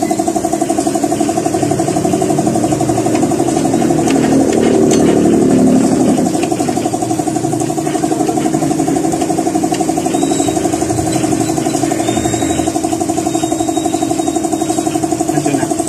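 An engine idling steadily with a fast even pulse, swelling slightly about four to six seconds in.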